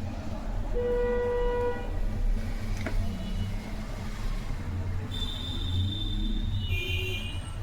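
Road traffic rumbling steadily, with a horn sounding once, briefly, about a second in, and higher horn-like tones near the end.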